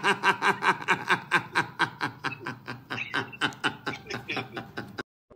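A man laughing: a long run of quick, evenly spaced 'ha' pulses, about five a second, that slowly fades and cuts off abruptly just before the end.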